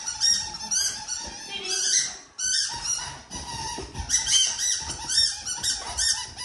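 Squeaky bone-shaped dog toy squeaking again and again as a dog bites and chews it, in quick runs of short, high squeaks with a brief pause about two and a half seconds in.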